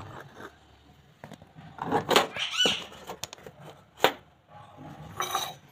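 Steel kitchen utensils clinking and knocking, with a louder knock about four seconds in. A short, high, arching call is heard between two and three seconds in.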